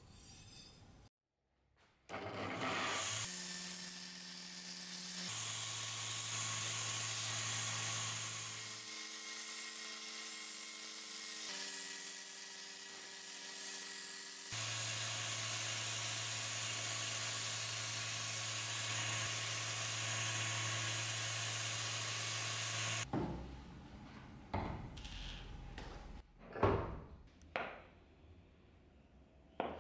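Belt grinder running while the steel machete blade is ground against the belt: a steady hiss over a motor hum whose pitch shifts a few times. Near the end the grinding stops and a few short scrapes and knocks follow.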